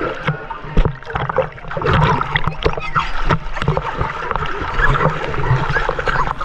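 Water splashing and sloshing, with irregular knocks and splashes all through.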